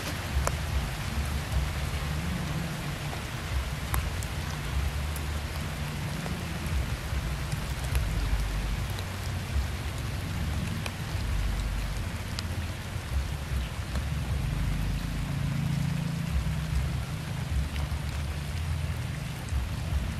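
Steady outdoor hiss with an uneven low rumble underneath and a few faint clicks scattered through it.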